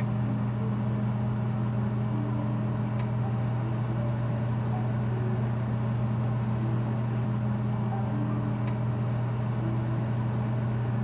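Electric oven running while baking at 220 °C, a steady low hum from its fan and heating, with two faint ticks.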